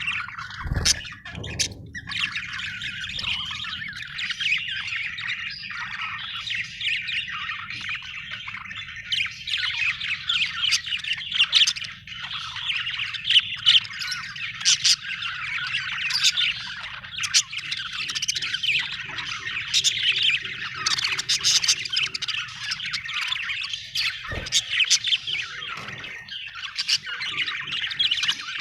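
Budgerigar chirping and squawking in a continuous, fast chatter, the happy chatter of a content bird. A steady low hum runs underneath, with a soft thump about a second in and another near the end.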